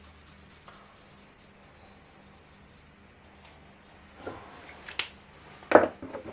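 Faint scratching of a marker pen rubbing along a steel bar, then a few sharp knocks of the pen and small tools put down on the wooden bench, the one near the end the loudest.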